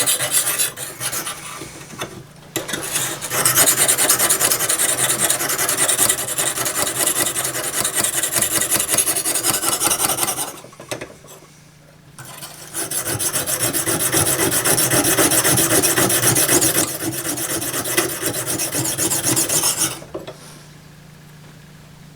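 A Lansky guided sharpening hone rasping back and forth on an oiled stone against the spine of a saw blade, in continuous strokes with firmer pressure on the forward stroke. It breaks off for about two seconds around the middle and stops shortly before the end.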